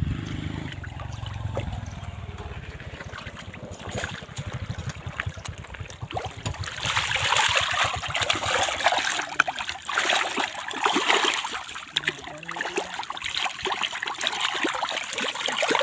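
Fish splashing and thrashing at the surface of shallow water as they feed on food scraps, in repeated irregular bursts that grow busier and louder about seven seconds in.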